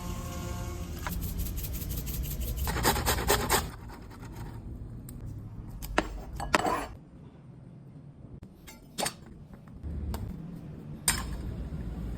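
Kitchen food-preparation handling: utensils rubbing, scraping and clinking against dishes, in dense runs of rapid crackling clicks near the start and about three seconds in, then a few single clicks.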